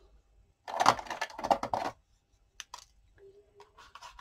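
Paper and card handled on a desk: a short burst of crackling rustle about a second in, then a couple of sharp clicks.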